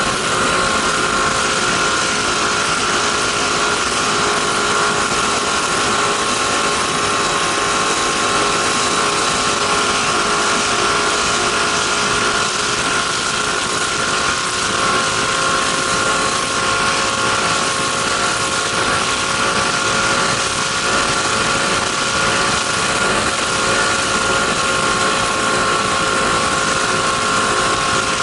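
Race boat's engine running hard at a steady high pitch, under a constant rushing noise, heard from on board while the boat runs at speed.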